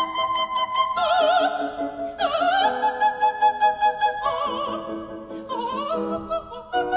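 Operatic music: a high singing voice holding long notes with wide vibrato, over an instrumental backing.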